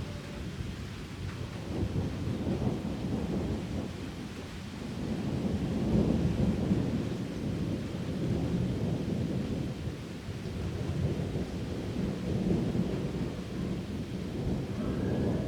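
Thunder rumbling low and long over a steady downpour of rain. The rumble swells about a third of the way in, eases off, and builds again near the end.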